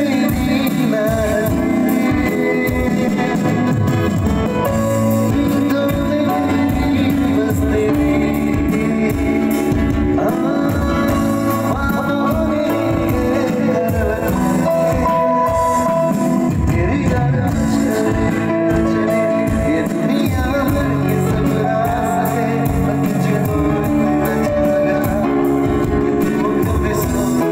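Live band playing a song: a man singing through a microphone over guitar and keyboard accompaniment.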